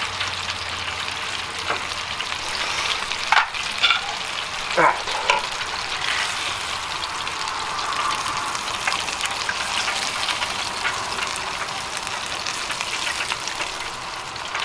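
Breaded crappie fillets sizzling in a deep fryer's oil at 350°F, a steady crackling hiss, with a few sharp clicks between about three and five seconds in.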